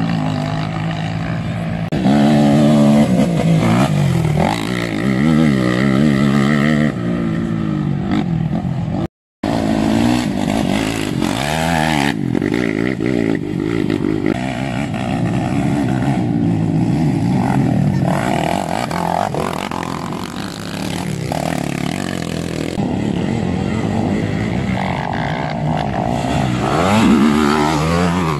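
Sport quad (ATV) engines revving up and down as they race on a dirt track, the pitch rising and falling with each throttle change; one quad swells louder as it passes close near the end. The sound drops out for a moment about nine seconds in.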